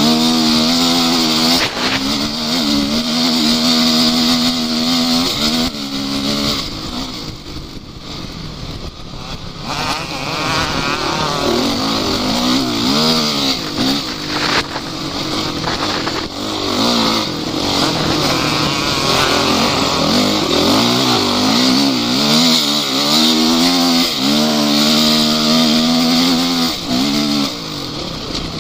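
Off-road vehicle engine running under way. Its revs hold steady at first, then rise and fall again and again through the middle, and settle back to a steady pitch near the end.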